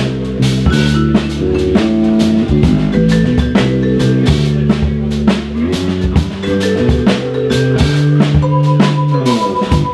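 Vibraphone, electric bass and drum kit playing a jazz groove together. Ringing vibraphone notes and chords sit over a moving bass line and busy drums with snare and rimshots, and a high vibraphone note is held near the end.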